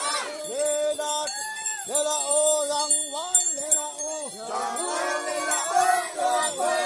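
A group of Konyak Naga men chanting together in long held notes that rise and fall off at their ends, with metallic jingling over the top.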